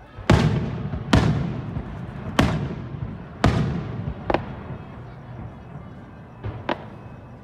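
Aerial firework shells bursting: four loud booms about a second apart, each trailing off, then a softer bang and two quick lighter bangs near the end.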